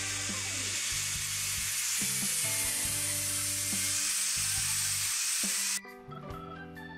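Angle grinder with an abrasive disc grinding the metal crossguard of a sword, a steady hissing grind that cuts off suddenly near the end, leaving background music.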